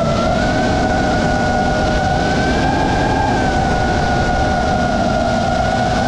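FPV quadcopter's brushless motors and propellers whining steadily over a rushing hiss, the pitch drifting slightly up and down with throttle.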